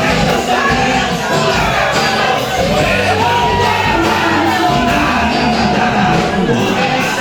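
Live band playing gospel worship music, with voices singing and shouting over it.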